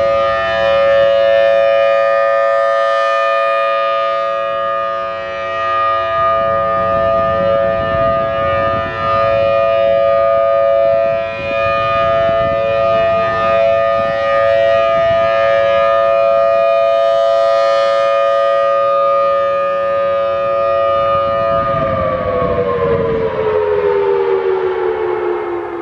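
Federal Signal Thunderbolt 1000T outdoor warning siren sounding its steady alert tone, a two-note chord, swelling brighter twice as the rotating horn sweeps past. About 22 seconds in, the pitch slides down as the siren winds down at the end of the alert.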